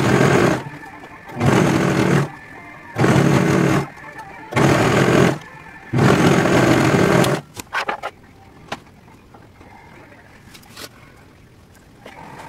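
Serger (overlock sewing machine) stitching fabric, run in five short bursts of about a second each, stopping about seven and a half seconds in. A few sharp clicks follow.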